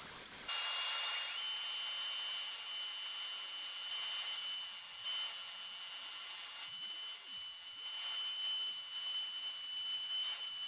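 Router in a router table running with a steady high-pitched whine while the edge of a wooden canoe paddle shaft is routed.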